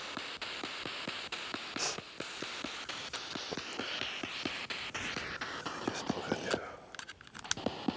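SP7 spirit box scanning through radio stations: a hiss of static chopped by rapid clicks as it skips from station to station. About seven seconds in the static drops out for a moment, then a few clicks follow.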